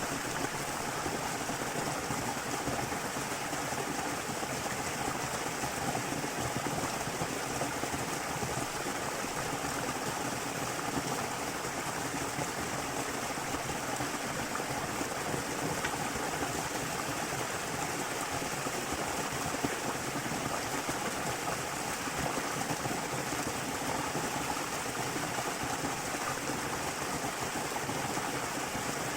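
Small waterfall's water rushing and splashing in a steady, unbroken hiss.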